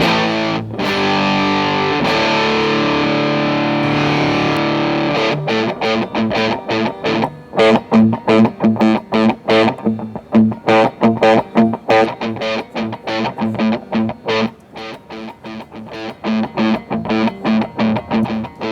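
Framus Idolmaker electric guitar played through the EarthQuaker Devices Gray Channel dual overdrive pedal on its red channel. It opens with ringing overdriven chords left to sustain, then from about five seconds in switches to a fast run of short, chopped notes.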